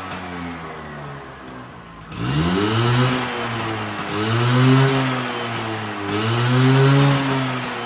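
Vespa 100's single-cylinder two-stroke engine running on a freshly rebuilt carburettor. The revs sink for the first two seconds, jump sharply at about two seconds, then rise and fall in slow swells about every two seconds as the throttle is opened and closed.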